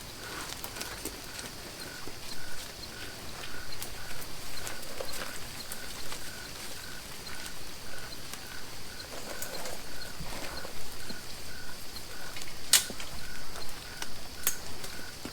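Woodland ambience with insects singing: a steady high buzz, and a short chirp repeated evenly about three times a second. Scattered sharp clicks and taps over it, the sharpest about two-thirds of the way through.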